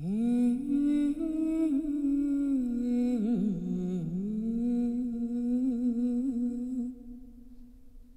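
A Korean folk singer's voice singing a long, low wordless line of held notes that bend and waver in pitch. About seven seconds in it drops away, leaving a faint steady tone.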